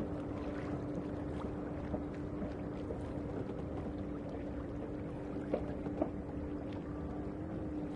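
Wind and water noise aboard a small sailboat, under a steady low hum, with two sharp knocks about half a second apart a little past the middle.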